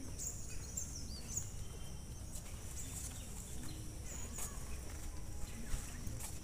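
Faint outdoor ambience: a low steady rumble with a few short, high bird chirps, clearest in the first second and a half.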